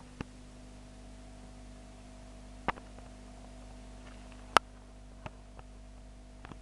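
Steady low hum of running aquarium equipment, with several sharp clicks, the loudest about four and a half seconds in.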